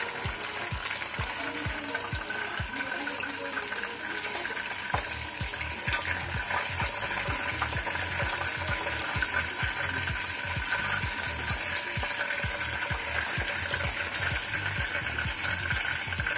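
Chicken pieces sizzling steadily as they finish deep-frying in hot oil, crisp and being lifted out with a steel slotted spoon. There is one sharp click about six seconds in, and background music with a steady beat underneath.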